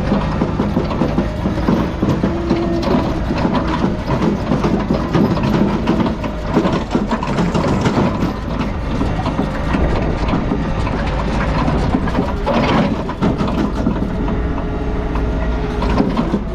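Heavy diesel machinery running steadily with many metal clanks and knocks over it, and a louder scrape or crunch about twelve and a half seconds in.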